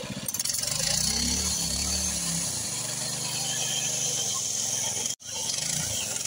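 Homemade trike's single-cylinder walk-behind-tractor engine running as the rider tries to drive it out of swamp mud. It revs up and falls back about a second in, then runs on steadily under a steady hiss, with a brief break about five seconds in.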